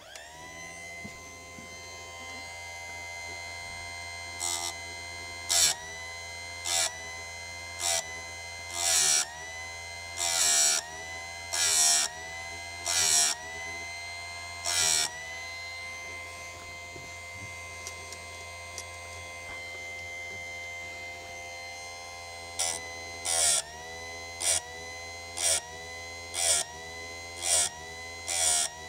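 Electric chain-sharpening grinder's motor starting up and running with a steady whine. The grinding disc is brought onto chainsaw chain teeth in short touches about once a second, each a loud burst of grinding that briefly pulls the motor's pitch down. There is a break of several seconds between two runs of touches.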